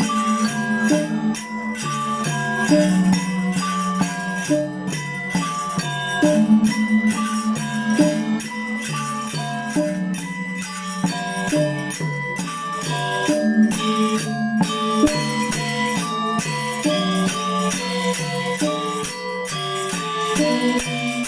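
Balinese gamelan angklung ensemble playing: quick runs of pitched metallophone notes over a held, pulsing low note, with jingling high percussion.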